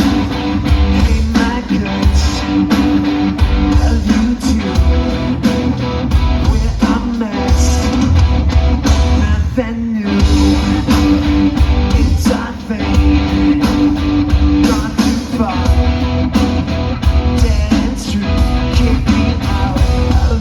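Rock band playing live through a loud PA during a sound check: electric guitar and bass over a steady beat.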